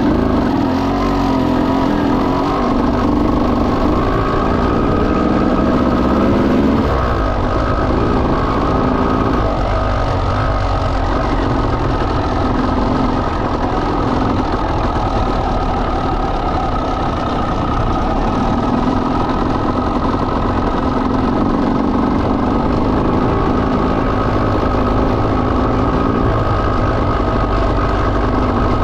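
1989 Honda CR250 two-stroke single, big-bored to 310cc, running under riding. Its pitch climbs over the first several seconds, drops, and then rises and falls again as the throttle and gears change.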